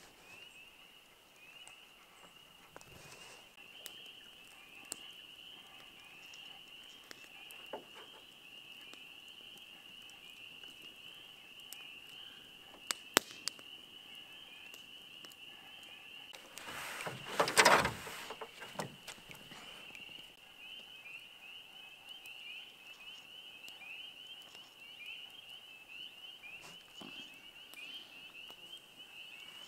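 A dense chorus of spring peepers, many short rising peeps overlapping without a break. A couple of sharp clicks come a little before halfway, and a brief louder burst of noise just past halfway.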